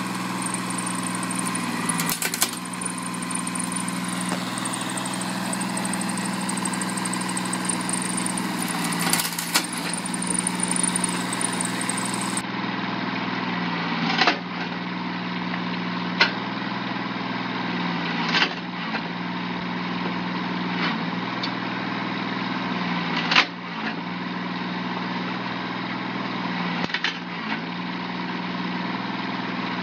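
Tractor engine running steadily, driving a PTO-powered firewood saw, with a short sharp crack every few seconds as a branch is cut through and the piece drops.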